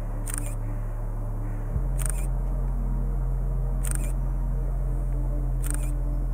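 DSLR shutter firing four times, one sharp click about every two seconds, as frames are taken in steady succession. Underneath is a low steady drone that shifts to a new pitch about two seconds in.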